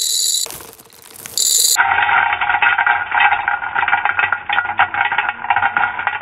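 M&M's candies poured from a plastic bag into a glass swing-top jar. The bag crinkles briefly at first, then about two seconds in a continuous clatter starts as the candies rattle against the glass and each other.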